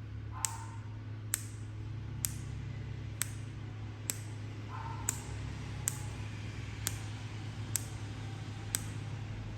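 Sharp mouth clicks in a steady rhythm, a little faster than one a second, made to get a sun conure dancing. A couple of short faint chirps come in about half a second and five seconds in, over a steady low hum.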